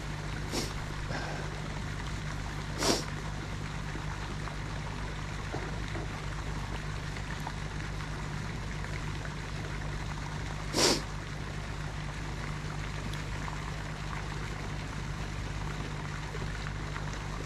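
Steady running-water noise with a low hum beneath it, broken twice by a short sharp whoosh about eight seconds apart.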